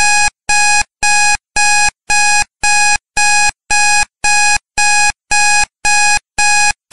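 Electronic alarm-clock beeping, loud and evenly paced, about two identical short beeps a second, starting abruptly: the signal that the countdown timer has run out.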